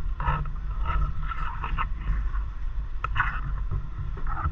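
Steady low rumble of a car's engine and tyres heard from inside the cabin as it creeps along slowly, with scattered voices of people outside coming through.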